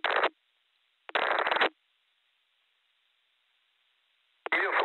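Amateur radio repeater audio: a very brief burst of noisy radio sound, then another of about half a second a second in, each switching on and off abruptly as the squelch opens and closes, with near silence between; a longer burst starts near the end.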